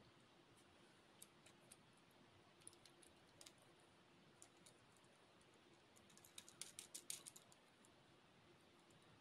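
Faint, light clicks and taps of long acrylic fingernails and fingertips on a small plastic toy car as it is turned over in the hands, scattered at first, then a quick run of clicks about six seconds in.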